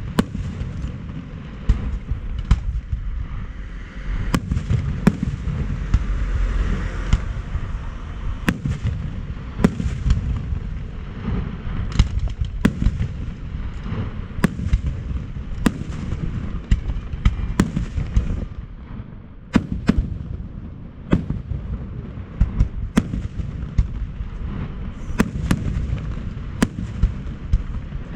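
Aerial fireworks display in full barrage: sharp shell bursts more than once a second over a steady low rumble of continuous detonations.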